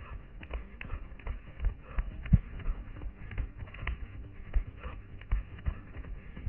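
A runner's footsteps thudding on a sandy forest floor of pine needles and dry brush, about three strides a second, with twigs crackling underfoot, heard through a head-mounted camera.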